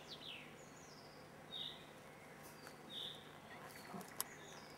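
Faint outdoor ambience with a few short bird chirps, and several light clicks near the end as a tin can is handled.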